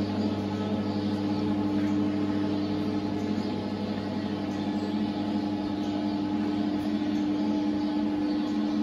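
Horse solarium running overhead with a steady electrical hum and a fan-like hiss.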